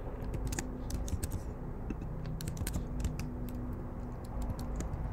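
Typing on a computer keyboard: a run of irregular key clicks, several a second, over a faint steady hum.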